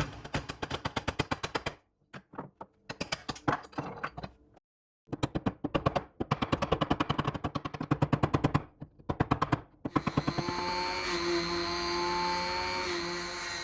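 Rapid bursts of sharp taps, several a second, broken by short pauses. About ten seconds in, a power tool's motor starts and runs at a steady pitch.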